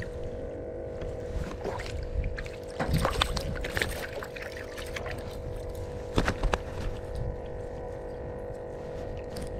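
Hands working a hook out of a small freshly caught trout: scattered clicks and rustles, loudest about three seconds in and again about six seconds in, over a steady droning hum.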